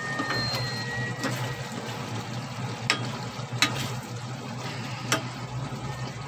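A spoon stirring pork ribs simmering in sauce in a metal pot, with three sharp clinks of the spoon against the pot, the loudest a little past halfway. Beneath it runs a steady low hum.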